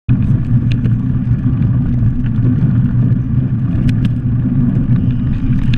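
Bicycle riding along a dirt forest track: a steady rumble of tyre noise and wind on the bike-mounted microphone, with scattered small clicks and rattles from the bike.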